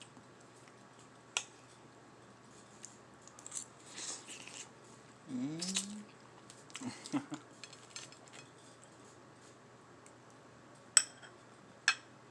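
Close-up eating sounds: a person chewing baked mozzarella sticks and fries, with scattered mouth clicks and smacks and a short hummed "mm" about five seconds in. Two sharp clicks near the end are the loudest sounds.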